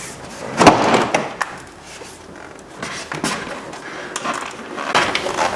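Rear interior door panel of a Ford Focus being lifted off the door and handled: a loud knock and scrape about half a second in, then lighter clunks and rustling of the trim.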